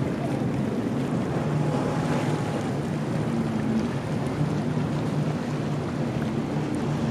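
Sea waves washing against the rocks of a breakwater, with wind buffeting the microphone into a steady low rumble.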